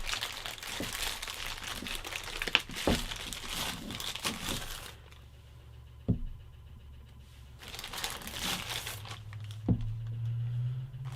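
Plastic packaging crinkling and rustling as fluoride filters are handled and unwrapped, with a quieter pause in the middle and two light knocks, about six and ten seconds in.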